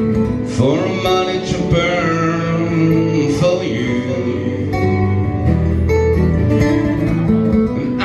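Two acoustic guitars strummed in a live rock song, with a male voice singing over them through a microphone.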